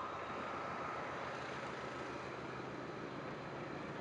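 Diesel train approaching along the line, its engine and wheels a steady rumbling noise.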